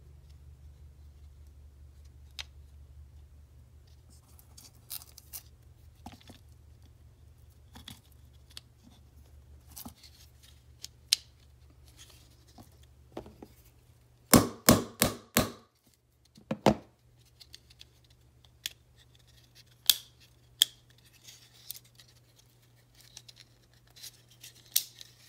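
Clicks and light scrapes of small parts being worked into a polymer pistol frame by hand as the trigger pin is fitted. A quick run of four sharp clicks comes about halfway through, with another a second later and a few single clicks near the end.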